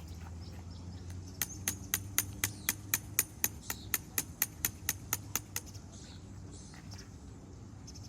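A rapid, even run of sharp clicks, about four a second for some four seconds, over a steady low hum.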